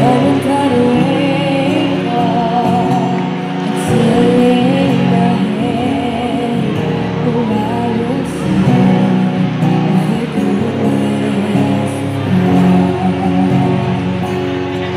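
A young girl singing a slow song into a microphone, accompanied by strummed acoustic guitar, both amplified through a small Roland Cube amp. Her held notes waver slightly.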